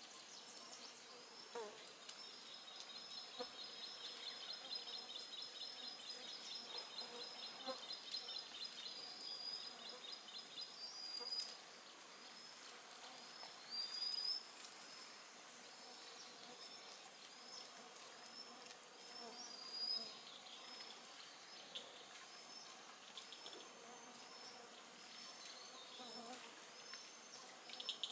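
Tropical insects buzzing in a high, steady chorus. A fast pulsing trill runs through the first ten seconds or so, and short high chirps repeat about once a second throughout.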